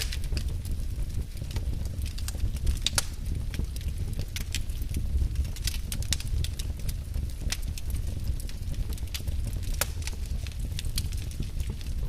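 Wood fire crackling in a fireplace: scattered sharp pops and snaps about every second or so over a steady low rumble.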